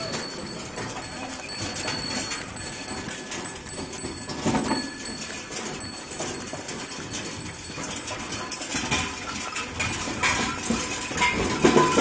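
A line of bullock carts passing close by: the bullocks' hooves clopping on the paved road, with the wooden-wheeled carts knocking and rattling as they roll.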